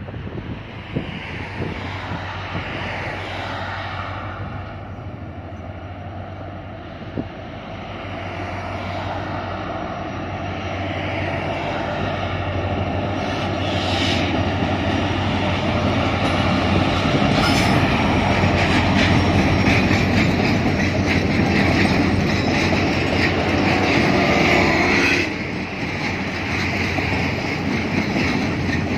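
Diesel locomotive hauling a freight train of tank wagons approaches and passes: a steady engine hum and rumble grow louder, then drop suddenly about 25 seconds in as the locomotive goes by, leaving the rolling noise of the wagons, with wheels clicking over the rail joints.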